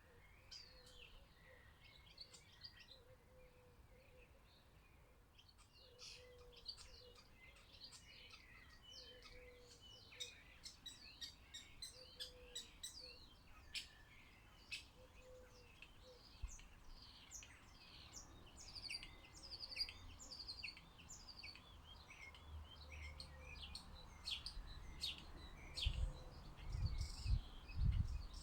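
Small garden birds chirping and calling in many quick overlapping notes, busier from about six seconds in, with a soft lower note repeating underneath through the first half. A few low thumps come in near the end.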